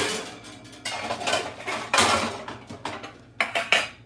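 Pots and utensils clattering and knocking against each other and the counter, in a string of separate knocks and scrapes.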